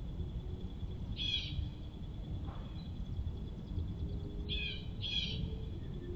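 Three short bird calls: one about a second in and two close together near the end. They sound over a steady low background rumble and a faint, steady high tone.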